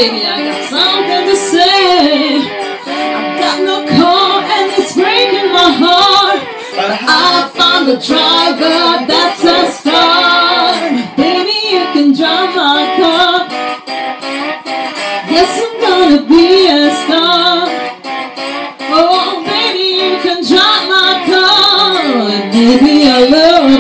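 Female singing voice with an electric lap steel guitar, a voice-and-lap-steel duo; the melody glides and bends between notes.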